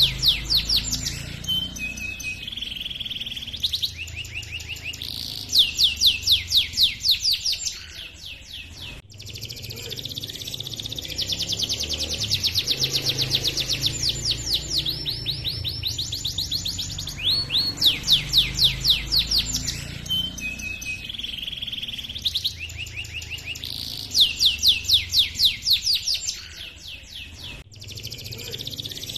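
Male domestic canary singing a long, unbroken song of chirps and rapid rolling trills ('ngerol'), the high notes coming in fast runs. The song stops briefly about nine seconds in and again near the end.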